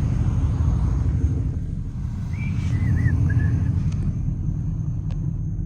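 Steady low rumble of a car's engine, exhaust and road noise while it cruises in traffic, without revving.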